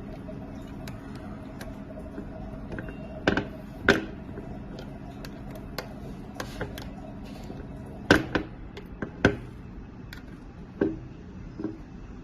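Irregular sharp metal clicks and knocks, about six of them, as screws are loosened and the parts of a hand-operated passport cutter are handled during disassembly.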